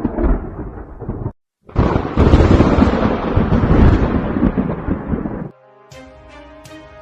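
Thunder rumbling and cutting off. A louder, longer thunderclap follows about two seconds in and rolls on for about four seconds. Near the end, music with sustained tones starts.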